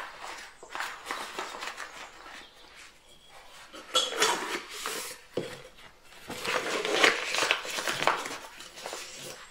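Rustling and crinkling as a plastic bag and a silicone piping bag are handled, with small clicks and knocks. The rustling is loudest about four seconds in and again for a couple of seconds near the end.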